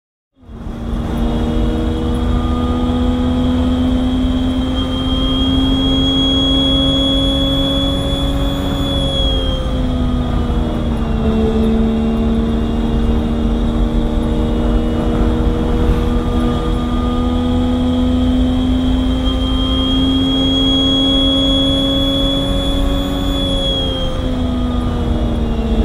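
Race car engine heard onboard, running steadily under load with a high whine above it. Its pitch climbs slowly, drops back about ten seconds in, then climbs again and drops once more near the end.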